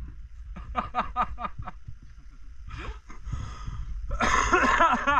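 People laughing: a quick run of short laughs about a second in, then louder laughter breaking out near the end, over a low rumble.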